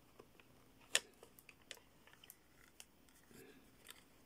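Faint handling clicks and taps from the case of a Pye Pocketfone PF1 receiver as its back cover is fitted over the plate aerial. There is one sharper click about a second in and a few smaller ticks after it.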